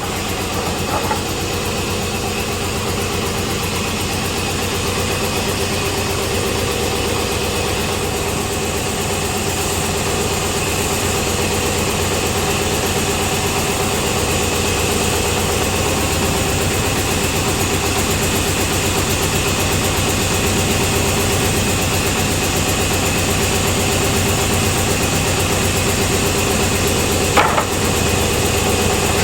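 Woodworking machine motor running steadily with a constant hum and buzz while cricket bats are worked. A brief sharp knock comes near the end.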